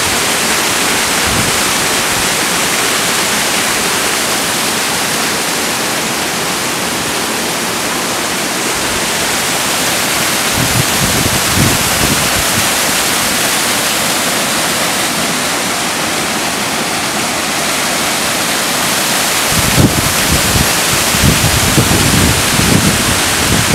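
Waterfall: a steady, loud rush of falling water. Low gusts of wind buffet the microphone about halfway through and again near the end.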